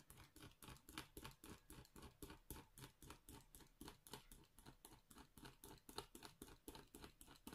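Craft knife blade scoring a diamond-painting canvas with many small, rapid strokes, a faint scratching of about five strokes a second. The cuts are there to let air trapped in a bubble escape, so the canvas lies flat.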